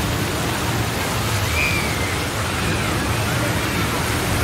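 Steady hiss of running and splashing water from the pool complex and its water slides, with faint distant voices and a brief high call about one and a half seconds in.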